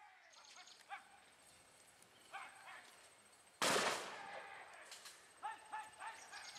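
A single loud bang about three and a half seconds in, of the kind fired to scare a wild elephant toward the forest, with a short echoing tail. Short shouted calls come before it and again a couple of seconds after.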